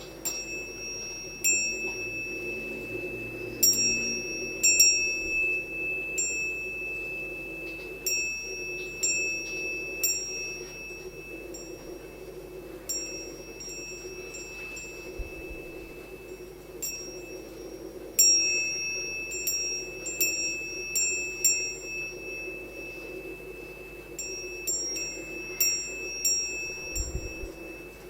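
Quartz glass door chime ringing: its glass pieces strike one another in about six clusters of rapid clinks, each leaving clear, high, bell-like tones that linger and fade. A steady low hum runs underneath.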